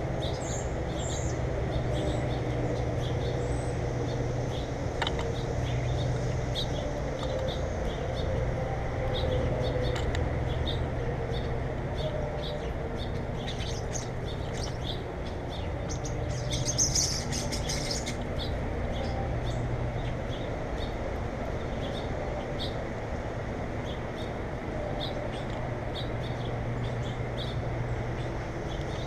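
Small birds chirping, many short high calls in quick succession, with a louder burst of calls about halfway through, over a steady low hum.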